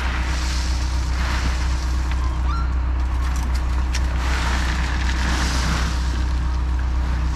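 Engine of working machinery running steadily while a load of rock is dumped. Two rushes of noise swell and fade over the drone, one in the first two seconds and one about five seconds in.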